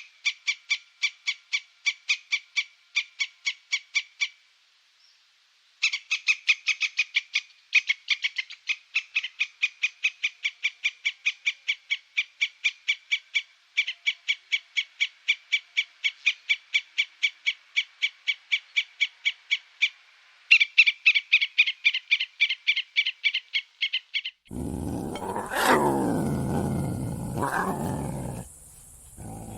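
An animal call repeated rapidly, about four short chirps a second, in several runs with brief pauses between them. Near the end it gives way to a louder, deeper growling call that falls in pitch.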